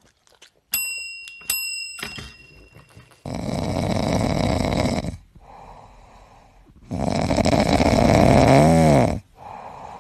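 A tabletop service bell dinged twice, about a second in and again half a second later, each ding ringing on. Then a French bulldog snoring loudly in its sleep: two long snores of about two seconds each, with a fainter breath near the end.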